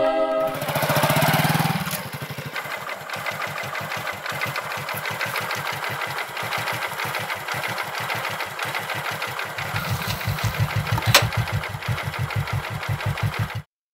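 Motorcycle engine running at low speed as the bike rides up and pulls to a stop, a steady putter that gets louder near the end and then cuts off suddenly. A single sharp click comes shortly before the stop.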